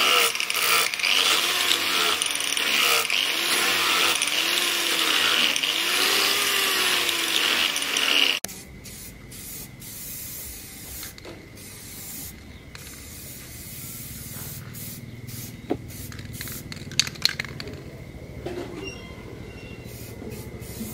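Angle grinder with a disc grinding the steel axe head, its motor pitch dipping and rising again about once a second as it is pressed on and eased off; it cuts off suddenly after about eight seconds. Then short hisses of an aerosol spray can coating the wooden axe handle, with a few sharp clicks.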